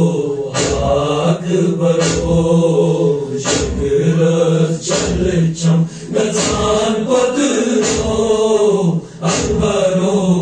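Male voices chanting a noha, a Shia mourning lament, in a slow sung recitation over a heavy thump that falls about every second and a half.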